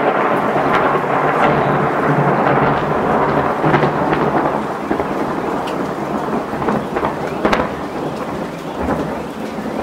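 Rolling thunder from a positive cloud-to-ground lightning strike, slowly dying away over steady rain.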